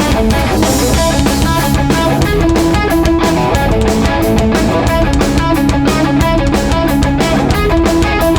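Live oi punk band playing loud: distorted electric guitars over bass and a driving drum kit beat.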